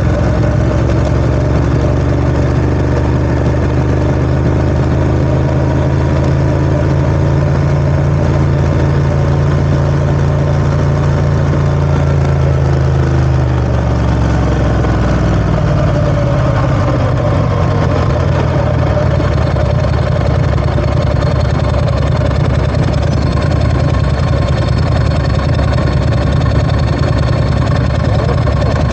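Ducati ST4S motorcycle's V-twin engine idling steadily. About halfway through, the engine speed drops to a lower, steady idle.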